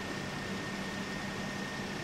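Steady low machine hum and hiss with a thin, steady high-pitched whine.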